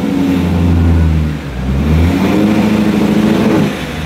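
BMW E39 540i's V8 through a straight-piped exhaust, running just after its first start and revved. The note holds steady, dips, then rises about two seconds in, holds, and drops back near the end.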